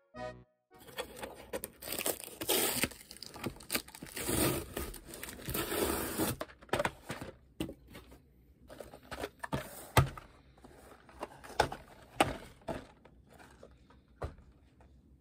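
Cardboard box and folded paper insert being handled and unfolded: dense rustling and crinkling for the first several seconds, then scattered light taps and knocks, with one sharp knock about ten seconds in.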